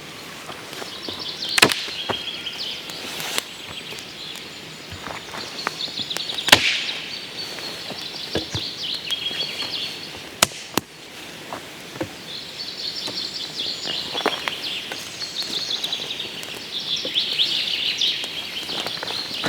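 Small songbirds chirping and trilling in repeated phrases, with a few sharp knocks, the loudest about one and a half and six and a half seconds in.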